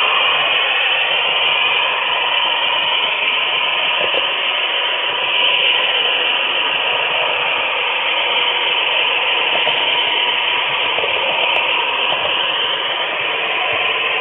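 HO scale model train rolling along the track, heard up close from a camera riding on a flat car: a steady rushing rumble of metal wheels on rail, with faint whines that slide up and down here and there.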